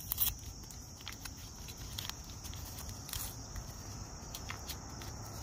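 Small paper instant-coffee sachet being handled and torn open: scattered light crinkles and clicks, the loudest just after the start. A steady high insect drone runs underneath.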